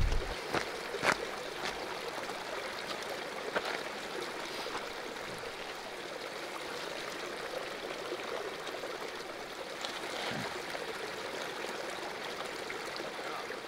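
A small stream running, a steady rush of water, with a few light clicks in the first few seconds.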